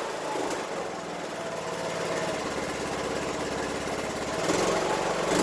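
Troy-Bilt Pony lawn tractor engine running steadily on freshly changed oil, which the owner reckons got rid of a lot of its noise; it gets louder about four and a half seconds in.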